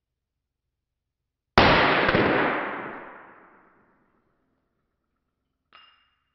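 A single shot from a long-barrelled Luger P08 pistol in 9 mm, fired with its stock holster attached: one sharp report about one and a half seconds in that rings out and dies away over about two seconds. A faint metallic clink near the end.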